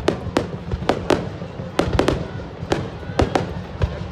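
Fireworks going off: a rapid, irregular series of sharp bangs and cracks, some in quick clusters.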